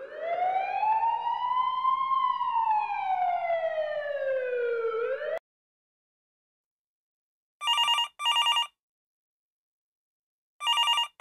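A siren gives one slow wail, rising and then falling, and cuts off suddenly about five seconds in. After a short silence a telephone rings with a double ring twice, the second double ring near the end.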